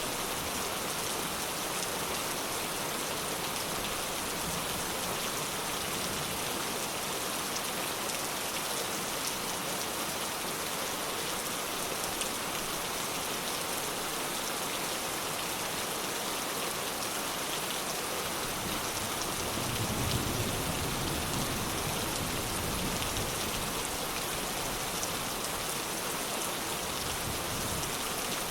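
Steady rain pattering down, a constant hiss, with a soft low rumble of distant thunder swelling and fading about two-thirds of the way through.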